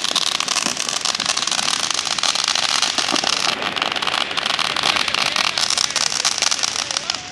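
A ground fountain firework spraying sparks: a steady, dense hiss full of rapid crackling.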